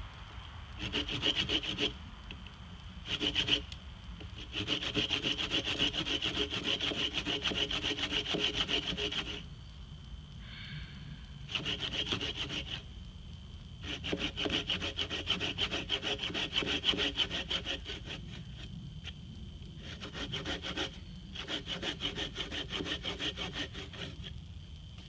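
Hand saw cutting through a log, worked back and forth in several bouts of rapid strokes with short pauses between them.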